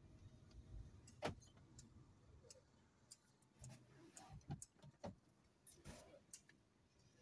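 Near silence inside a car: a faint low hum from the car as it rolls to a stop, fading out after two or three seconds, with scattered faint clicks and ticks, the sharpest about a second in.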